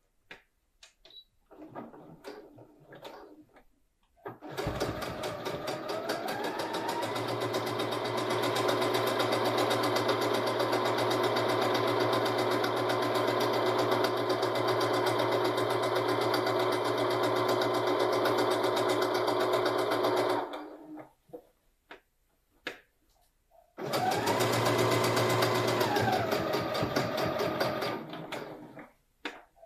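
Electric domestic sewing machine stitching through layers of cotton fabric: after a few seconds of small clicks it starts, speeds up and runs steadily for about sixteen seconds, stops, then makes a second, shorter run of a few seconds that winds up and slows down again.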